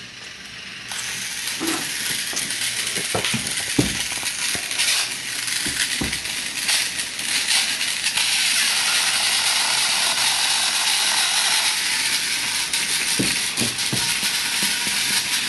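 Battery-powered Trackmaster toy trains running on plastic track: a steady mechanical whir and rattle with scattered clicks and knocks.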